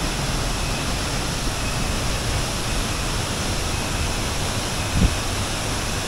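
Waterfall and the river below it rushing steadily, with a brief low thump about five seconds in.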